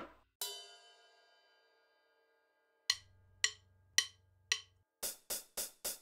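Cartoon sound-track percussion. A single ringing crash dies away over about two seconds, then four sharp hits come about half a second apart over a low hum, and near the end a quicker run of ticks follows, about three a second.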